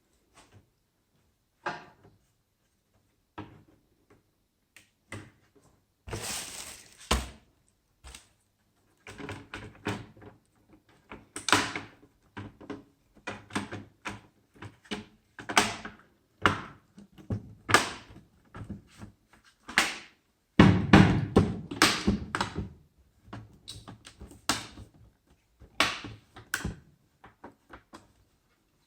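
Irregular clicks, taps and knocks of hard plastic and metal parts being handled, as in working on an opened laptop, with a cluster of heavier thunks about two-thirds of the way through.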